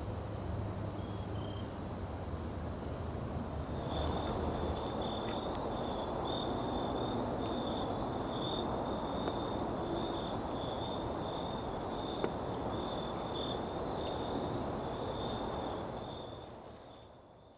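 Night insects trilling steadily at a high pitch, starting about four seconds in, over a low, even rushing noise. Both fade out near the end.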